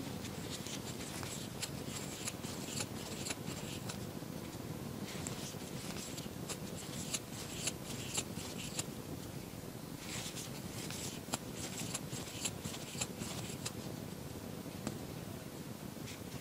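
Steel crochet hook working wool yarn through stitches: small scratchy ticks and rustles in bursts of a few seconds, with short pauses between, over a steady low room hum.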